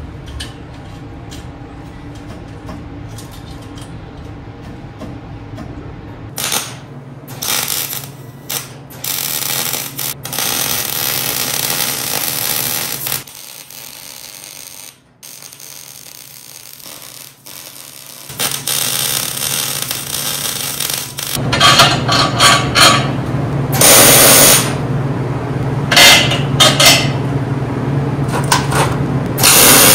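Metalworking on a steel frame: a steady low hum at first, then loud spells of tool noise. In the middle comes the hiss and crackle of an arc welder, and the last third is louder, with repeated bursts.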